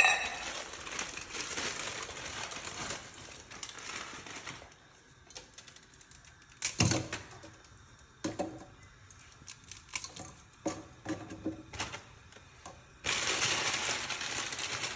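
Kitchen sounds of Maggi noodles being made: a steady hiss for the first few seconds, then scattered clicks, cracks and clatter of handling and utensils, and the hiss again near the end.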